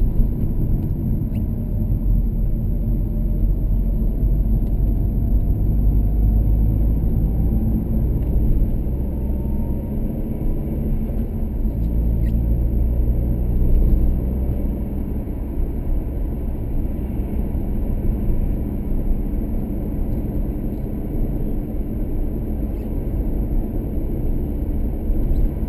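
Car cabin noise while driving: a steady low engine and road rumble, with a faint whine that rises slowly during the first ten seconds as the car gathers speed.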